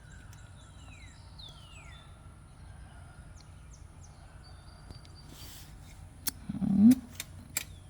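Birds calling, with several falling whistled notes and small chirps, over a steady low hum. A short, louder voice-like call comes near the end.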